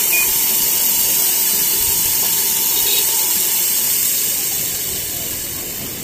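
Steady hiss of refrigerant in a Samsung Digital Inverter split-type air conditioner, equalizing through the system just after the inverter compressor is switched off, slowly fading in the second half.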